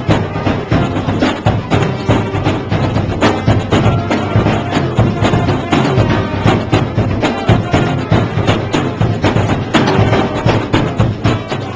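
Marching band playing a lively tune, brass carrying the melody over drums and other percussion that hit sharply and often.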